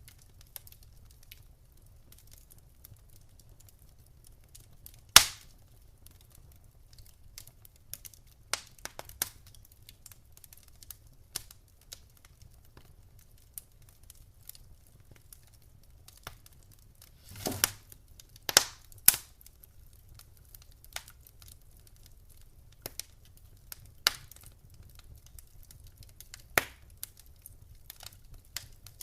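Wood fire in a fireplace crackling: scattered sharp pops and snaps over a faint low rumble. The loudest pop comes about five seconds in, and a little past halfway a short hiss is followed by two loud pops in quick succession.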